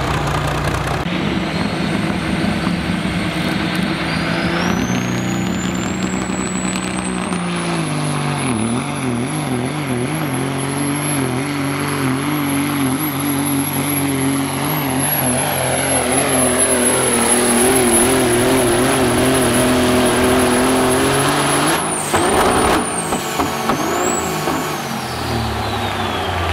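Turbocharged diesel engine of a pulling semi truck at full throttle dragging a weight sled. The turbo whistle climbs over the first several seconds and holds high while the engine note wavers under load. About 22 seconds in the throttle is cut with a short sharp burst, and the whistle falls away as the turbo spools down.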